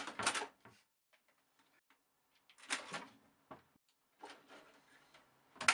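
A kitten scratching and clawing at the side of a computer tower: quiet scraping and rustling in short, scattered bursts.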